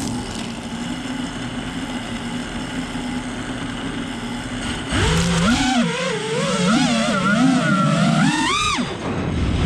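FPV racing quadcopter's brushless motors humming steadily at idle, then throttling up about five seconds in to a louder whine that rises and falls with each throttle change, climbing sharply then dropping near the end.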